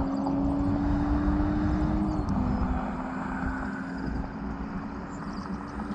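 A race vehicle's engine running hard at a distance, its tone climbing slowly, stepping down in pitch once about two seconds in, then slowly fading, over a low rumble.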